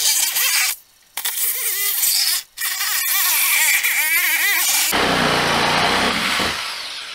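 Corded reciprocating saw cutting through the plastic body and drive-unit mounts of a kids' ride-on car to hack out the factory rear drive unit. It runs in three bursts with two brief stops, its pitch wavering as the blade loads up. It turns rougher for a second or two, then winds down near the end.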